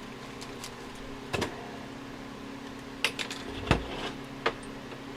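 Steady electrical hum of a hot-staple plastic welder heating a staple for the cracked plastic bumper cover, with four short sharp clicks and knocks spread through it.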